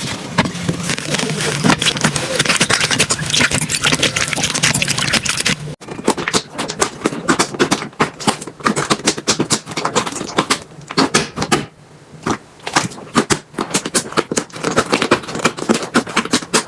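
Slime being squeezed and stretched by hand, giving dense crackling and popping clicks. It breaks off abruptly about six seconds in and resumes with sparser, sharper clicks.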